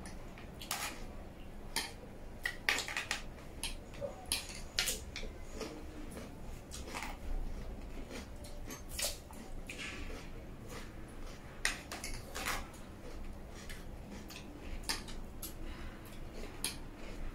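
Forks and spoons clinking and scraping on metal serving trays of noodles: many scattered short taps and clicks, with chewing close to the microphone.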